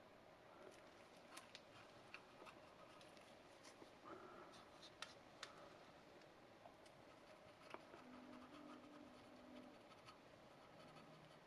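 Near silence with faint scattered clicks and scratching: a cotton swab rubbing baking soda paste onto the plastic teeth of a dental model, with gloved hands handling the model.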